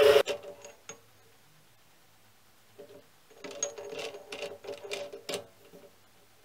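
The mini lathe's running noise cuts off just after the start. A few light clicks follow, then from about three seconds in a run of sharp metallic clicks and clinks as a chuck key is turned in the three-jaw chuck gripping the steel part.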